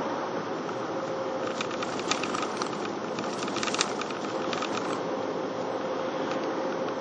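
Steady road and engine noise heard from inside a moving car, with a faint steady hum under it. From about a second and a half in to about five seconds in, a run of irregular light clicks, like something rattling in the cabin.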